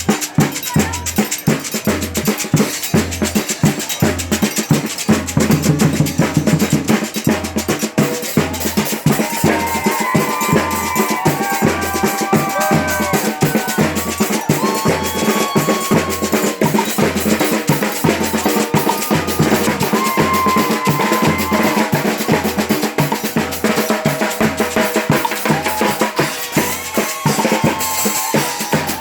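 Street brass band (fanfarra) playing: surdo bass drums keep a steady low beat under snare drums. Horns come in with held notes about nine seconds in.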